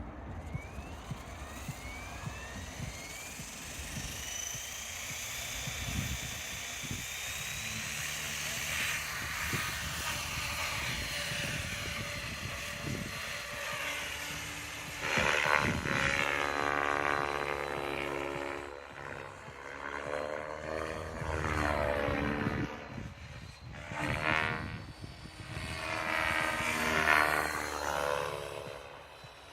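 Electric 6S RC helicopter, an Align T-Rex 550X, spooling up: its motor and rotor whine rises in pitch over the first few seconds. It then flies, with rotor noise and whine that swell loud and sweep up and down in pitch as it passes and manoeuvres.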